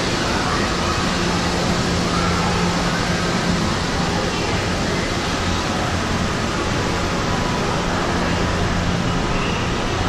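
Steady, even rushing ambience of an indoor aquarium exhibit hall, with a low steady hum underneath and no distinct events.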